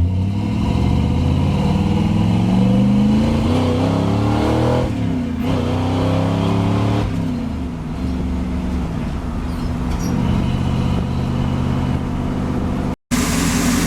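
1966 Chevy truck's 283 small-block V8 pulling under acceleration, its pitch rising for about five seconds, dropping at a gear change, then holding fairly steady.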